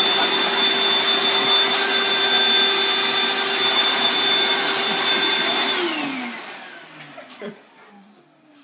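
Vacuum cleaner motor running with a steady whine, then winding down about six seconds in, its pitch falling as it fades out.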